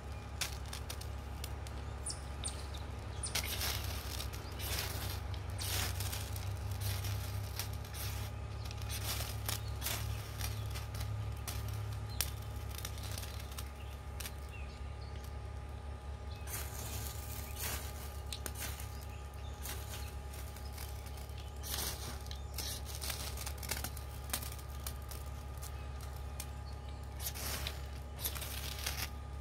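Ferro rod struck repeatedly with a knife to throw sparks into small piles of wood shavings, in clusters of short rasping scrapes, over a steady low hum.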